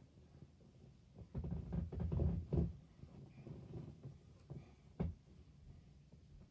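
A cluster of dull thumps and knocks about a second and a half in, a few fainter ones after, and a single sharp knock near the end.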